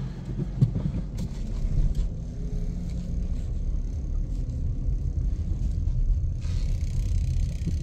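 Steady low rumble of a car driving, heard from inside the cabin: engine and tyre noise on the road, with a few light knocks. About six seconds in, a brighter hiss joins it.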